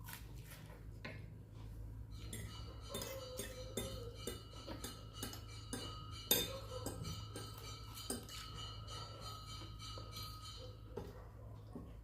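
Utensils clinking and tapping against dishes while eating, in a run of short clicks with one sharp clink about six seconds in. Several faint steady high tones run through the middle, over a constant low hum.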